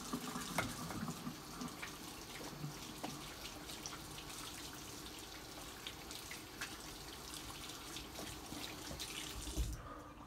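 Kitchen faucet running into the sink while hands are washed under the stream, with small clicks and splashes. The water is shut off just before the end, right after a dull thump.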